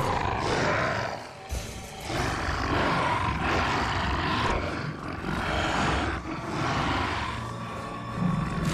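Growls and roars of a hyaenodon and an amphicyonid (bear-dog) confronting each other, in a series of rough bursts about a second apart, with music underneath.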